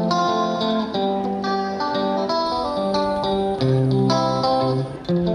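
Background music: a guitar playing a plucked melody over chords.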